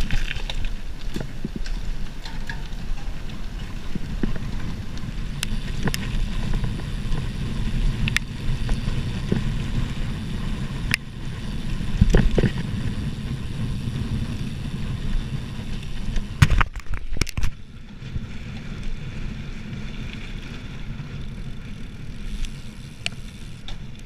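Gravel bike riding fast over a dirt-and-gravel track: a steady rumble of tyres and wind on the microphone, with scattered knocks as the bike jolts over bumps. A cluster of sharp knocks comes about two-thirds of the way in, and it runs quieter after that.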